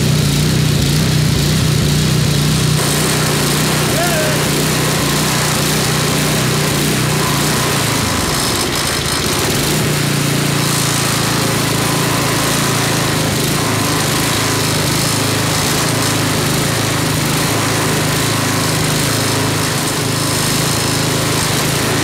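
Tecumseh 5.5 hp single-cylinder snowblower engine running steadily just after a hard start. About nine seconds in its note shifts as the throttle idle screw on the carburetor is turned in, then it settles and runs on.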